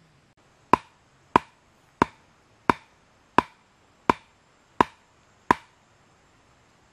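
Eight sharp, evenly paced strikes of a tool on wood, about one every 0.7 seconds, each ringing briefly.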